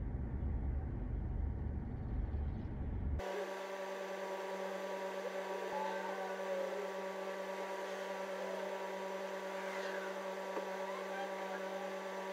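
Low rumble of an idling vehicle. About three seconds in it cuts abruptly to a steady hum of several fixed tones, with a few faint chirps over it.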